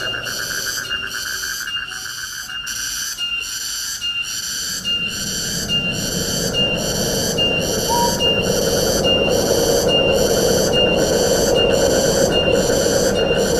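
Wind rushing through forest trees, dropping back briefly and then swelling about five seconds in. It runs under a high, rhythmic pulsing insect chorus that repeats a little under twice a second, with a finer trill beneath it and a single short chirp near the middle.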